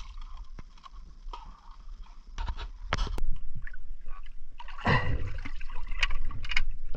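Water sloshing and splashing with scattered knocks, quieter at first and louder and busier from about five seconds in.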